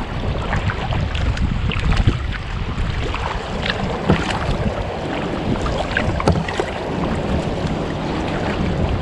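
Wind rumbling on the microphone while a kayak moves through choppy water, with water lapping at the hull and scattered small splashes and drips.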